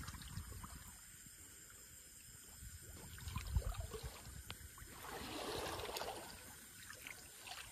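Faint water sloshing in shallow water while fish are being speared, with a soft swishing splash about five seconds in, over a low rumble and a few light clicks.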